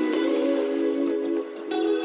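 Instrumental background music: held notes and chords that change every second or so.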